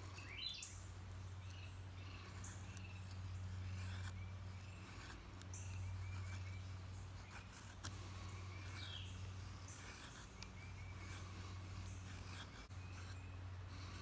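Thin stainless steel blade of a Victorinox Fieldmaster Swiss Army knife shaving curled feathers off a fatwood stick, faint scraping strokes. Birds chirp now and then over a steady low hum.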